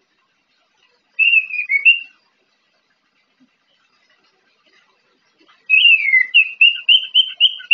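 Caged orange-headed thrush (anis merah), a bird still learning its song, singing in whistles. A short phrase comes about a second in. A longer phrase follows near the end: a falling whistle, then a quick run of repeated notes.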